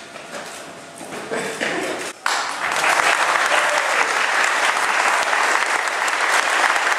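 Audience breaks into applause about two seconds in and keeps clapping steadily.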